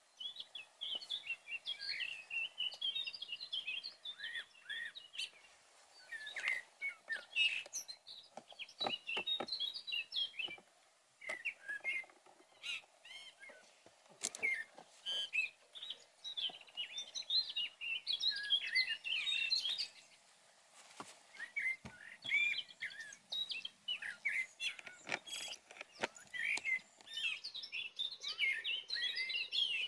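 Songbirds singing: bursts of rapid twittering song several seconds long, with short pauses between, and a few soft knocks among them.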